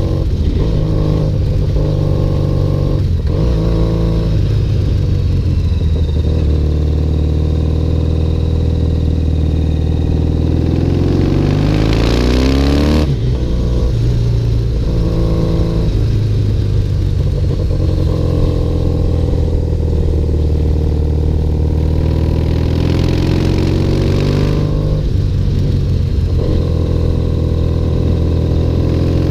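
Triumph motorcycle engine running under way. Its revs climb steadily and then drop sharply, as in an upshift, about thirteen seconds in and again about twenty-five seconds in, with a few shorter dips in the first few seconds.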